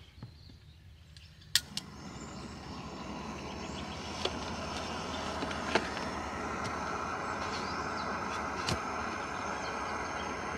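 Small canister gas camping stove lit with a sharp click, then burning with a steady hiss that builds over a couple of seconds and holds while it heats a pot of water. A few light clicks and knocks of the pot and stove fittings.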